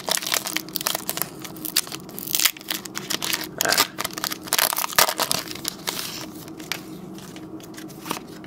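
Foil wrapper of a Pokémon Trading Card Game booster pack crinkling and tearing as it is ripped open, loudest in the middle. Then fainter rustling and clicks as the cards are taken out.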